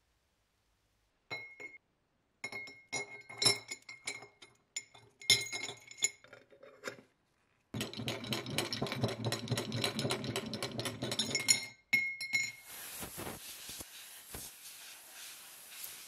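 Small metal lighter parts clinking against the inside of a glass jar of vodka, the glass ringing with each knock. About halfway through comes a dense run of rapid clinking and scraping as the parts are scrubbed in the jar with a brush, followed by a softer steady hiss.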